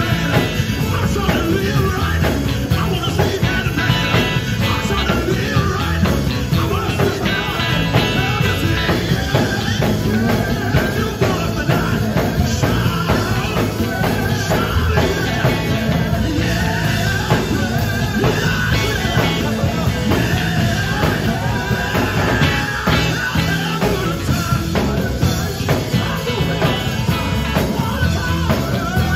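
Live gospel band performing: lead and backing vocals over electric guitar, electric bass and a drum kit, with a steady beat throughout.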